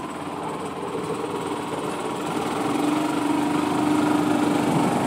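Yamaha G22 golf cart's single-cylinder gas engine running under way, governor bypassed, its engine note and loudness climbing gradually as the cart gathers speed.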